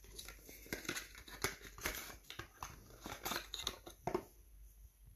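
Thin cardboard carton being handled and opened, its flaps crinkling and rustling in a run of small clicks and scrapes as a tube is slid out. The sound stops about four seconds in.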